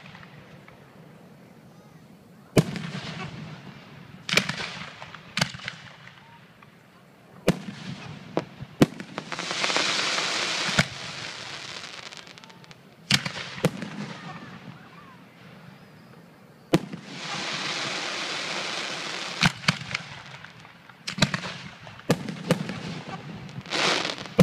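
Aerial firework shells bursting close overhead: sharp bangs at irregular intervals of one to a few seconds. Twice, about nine and seventeen seconds in, a long hiss of sparkling stars runs for a second or two.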